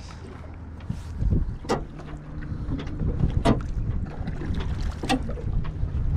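Wind buffeting the microphone over a steady low rumble aboard a small aluminium fishing boat, with a few sharp clicks and knocks of gear being handled in the boat.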